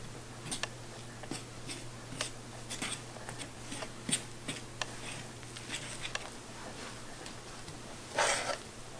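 Metal fork beating eggs into flour on a countertop: a soft, irregular run of small clicks and scrapes as the tines hit and drag across the counter, over a low steady hum. One louder short rustle comes near the end.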